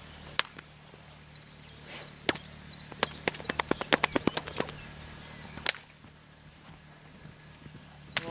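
A series of sharp clicks: a few single ones, then a quick run of about a dozen in the middle, over a steady low hum.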